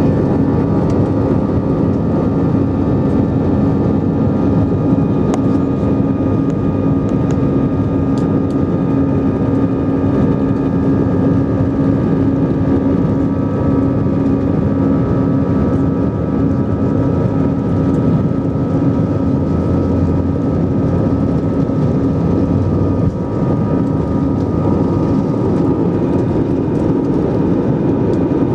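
Airbus A320-214's CFM56 engines running at take-off thrust during the take-off roll, heard inside the cabin beside the wing: a loud, steady engine noise with a steady high whine over it.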